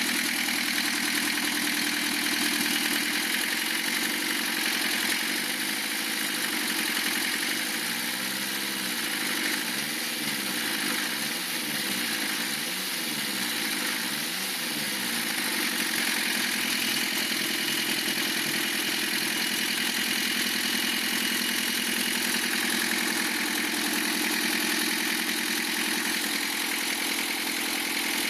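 Lancia Thema 2.5 TD turbodiesel four-cylinder engine idling with a knock from around the cylinder head, a knock that cutting out injectors 2 and 3 only partly eases. The owner puts it down to a piston striking.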